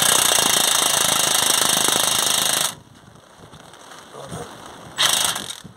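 Cordless impact wrench hammering as it undoes the 16 mm shock absorber bolt, running for nearly three seconds and then stopping, with a second short burst about five seconds in.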